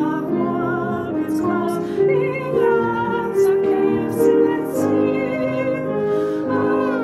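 A small group of women singing a song in harmony, several voices holding notes together with vibrato.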